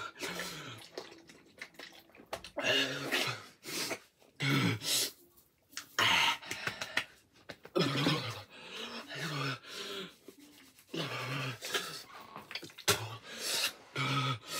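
A young man coughing and letting out short pained vocal sounds in repeated bursts every second or two, reacting to the burning heat of an extremely hot chili chip.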